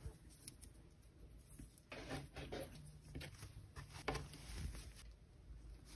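Faint rustling and soft handling of a crocheted yarn sweater on a table, with a light click about four seconds in.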